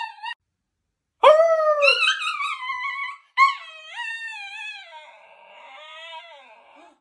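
A dog howling and yowling in drawn-out, pitch-bending calls: one loud call rising at its start about a second in, then a second, longer call that fades away. It is the dog's protest at being woken from sleep by a bark.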